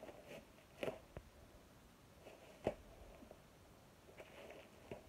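Plastic packaging bag being handled and pulled at while being forced open: faint crinkling with a few short, sharp snaps.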